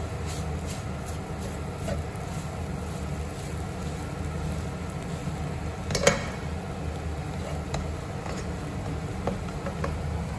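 Spatula stirring and tossing fried instant noodles in a frying pan, with light scrapes and taps and one sharper knock against the pan about six seconds in, over a steady low hum.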